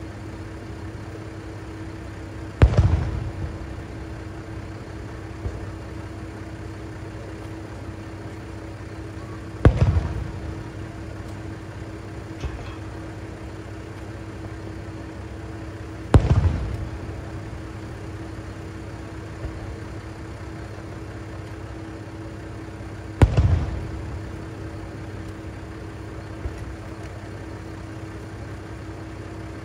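Four aerial firework shells bursting about seven seconds apart, each boom trailing off in a rumbling echo, with fainter pops between them. Underneath, a diesel railcar idles at the platform with a steady hum.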